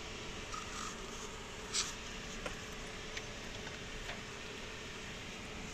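Steady background hiss with a faint hum, broken by a few light clicks and ticks, the sharpest a little under two seconds in.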